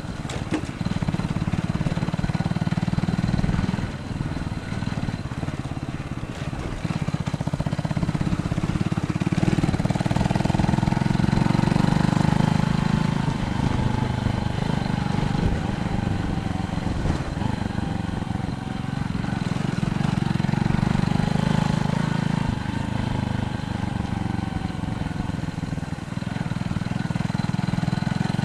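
Wind buffeting the microphone and tyre rumble on a bicycle ride, a steady low rush that swells and dips. From about ten seconds in, a faint wavering whine comes and goes, fading out a few seconds before the end.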